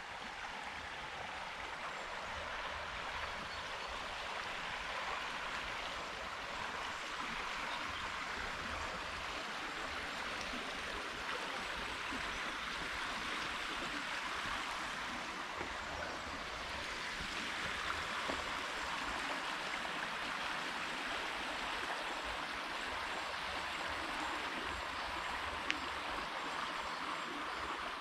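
Steady rush of river water pouring over a weir, a constant even roar without a break, with one brief click near the end.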